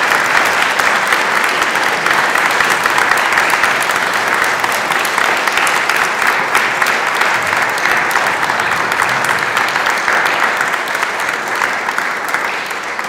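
An audience applauding: dense, steady clapping from a roomful of people, easing off slightly near the end.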